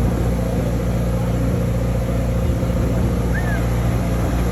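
Vehicle engine running at a steady, even pitch, with a constant low drone.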